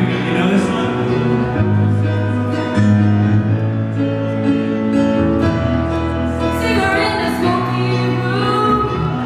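A live pop-rock band playing sustained chords, with a voice singing over them.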